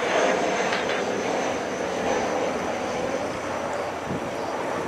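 Twin GE90 jet engines of a Boeing 777-200F freighter running as the aircraft rolls out on the runway after landing: a steady, broad rumble with a thin high whine, slowly fading.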